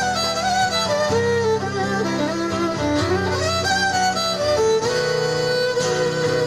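Live fiddle taking a melodic solo with vibrato over acoustic guitar accompaniment, an instrumental break in a folk song played by a small acoustic band.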